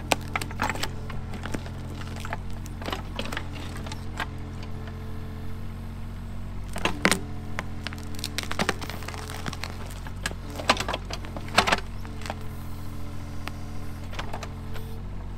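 Kobelco mini excavator's diesel engine running steadily while its bucket tears a tree stump out of the ground, roots and wood cracking and snapping in repeated sharp clicks, the loudest about seven seconds in and again near twelve seconds.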